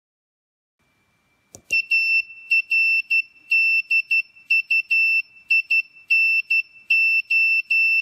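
Small piezo buzzer on an Arduino Nano circuit beeping Morse code in a high steady tone: short and long beeps in groups, spelling out the word ARDUINO. A faint click comes just before the beeps start, about a second and a half in.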